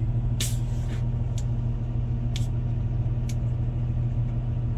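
Tractor engine running steadily, a low drone heard from inside the cab, with a few short, sharp clicks or hisses over it.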